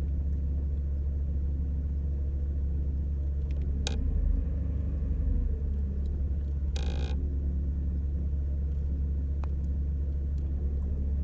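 A 2001 VW Polo's 1.4-litre AUA four-cylinder petrol engine idling warm, with the revs rising and dipping a little around the middle: a hunting, fluctuating idle. A brief rushing noise comes about two-thirds of the way through.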